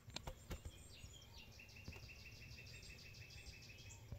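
Near silence with a few faint clicks at the start. After about a second comes a faint, even chirping trill of about nine chirps a second, lasting some two and a half seconds and stopping just before the end.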